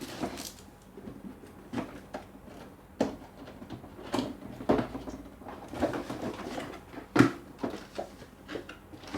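Cardboard game-console box and its packaging being opened and handled by hand: scattered taps, scrapes and rustles, with a sharp click about seven seconds in.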